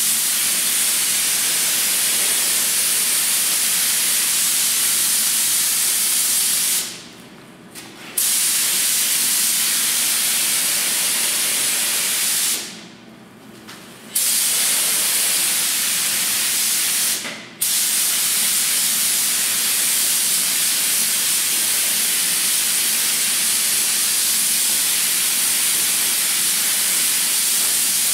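Gravity-feed compressed-air spray gun spraying primer onto a grille: a steady hiss of air and atomised paint. It stops three times as the trigger is released, briefly around seven and seventeen seconds in and for about a second and a half around thirteen seconds in.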